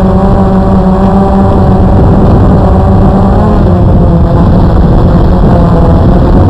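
Blade QX2 AP quadcopter's motors and propellers whining steadily under heavy wind rumble on the onboard microphone. The whine's pitch shifts about three seconds in and then grows fainter.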